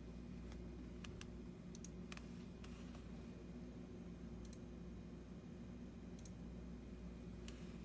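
Computer keyboard keys being pressed one at a time: about ten scattered clicks, some in quick pairs, most of them in the first three seconds. A steady low hum runs underneath.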